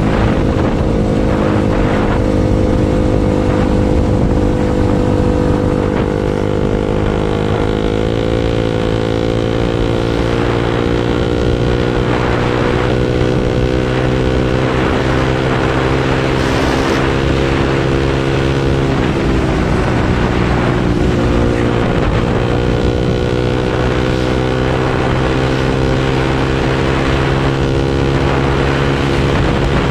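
Bajaj Pulsar NS single-cylinder engine with a very loud exhaust, running steadily at road speed under the rider. The note edges up slightly about a quarter of the way in, drops away about two-thirds of the way through, then climbs back.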